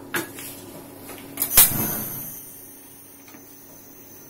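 Kitchen utensils knocking out of view: a short click, then about a second and a half in a louder clack that rings briefly.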